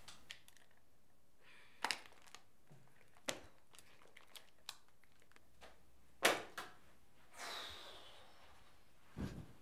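Small objects being handled in a quiet room: a few separate sharp clicks and light knocks, the loudest about six seconds in, then a short rustling swish.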